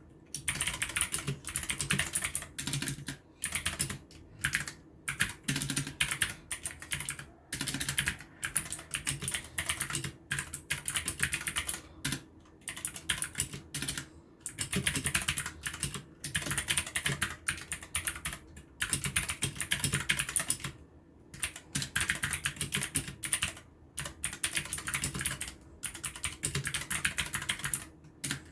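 Fast typing on a modded RAKK Pluma 68-key mechanical keyboard: dense runs of keystroke clacks in bursts of a second or more, with brief pauses between.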